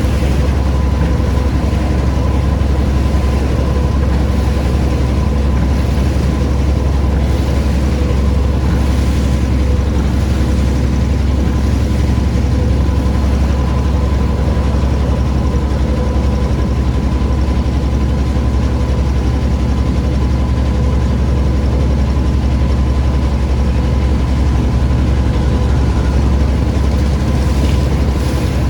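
A steady, unchanging low engine drone with a faint constant whine above it.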